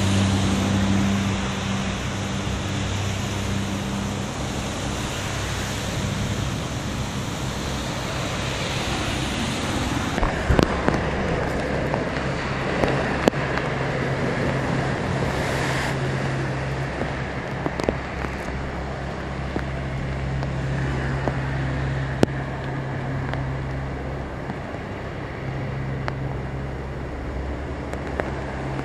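Heavy rain and passing cars on a flash-flooded city street, their tyres churning through deep standing water and throwing up spray, over a steady low traffic hum.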